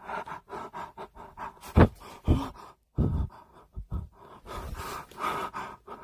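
Short thuds and knocks as a wooden wardrobe door is handled and opened, with a man's heavy breathing and gasps and a faint steady hum underneath.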